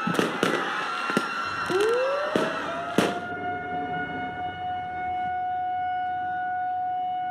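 Fireworks bursting with sharp bangs and crackling for about the first three seconds, then a siren winds up from a low tone to a steady wail that holds after the bangs stop.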